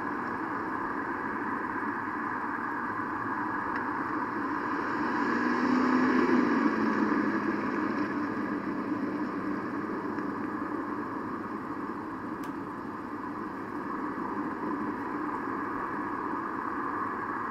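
Street traffic: a steady hum of passing cars, with one vehicle passing louder about six seconds in.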